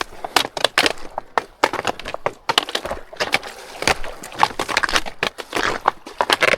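Snowshoe footsteps crunching on snow, an uneven run of crunches a few times a second.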